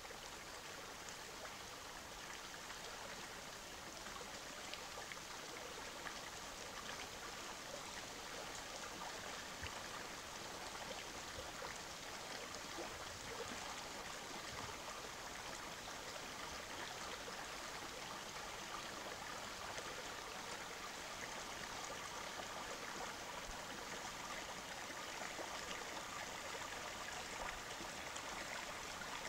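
Small rocky woodland stream running over stones: a steady rush of flowing water.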